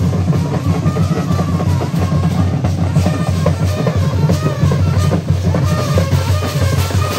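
Indian wedding brass band music: brass horns playing a melody over loud, steady drumming.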